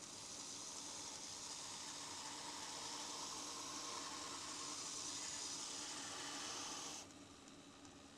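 A brush scrubbing grime off the old wooden handle of a cleaver, a steady hiss that cuts off suddenly about seven seconds in.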